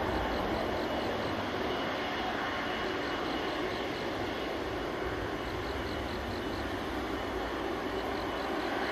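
Boeing 777-200ER's twin Pratt & Whitney PW4000-series turbofans at takeoff power as the jet departs, heard from behind: a steady jet roar.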